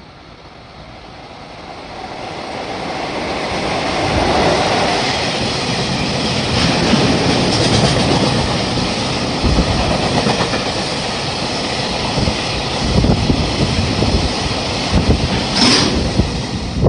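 A freight train of tank wagons hauled by an EF66-100 series electric locomotive approaches and passes. It grows louder over the first few seconds into a steady rumble, with rhythmic clickety-clack of wheels over the rail joints and a brief high wheel squeal near the end.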